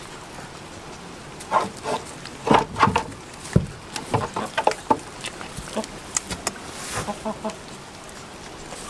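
Hens clucking in short bursts, mixed with crisp crunching as a goat bites and chews a piece of red vegetable held out by hand.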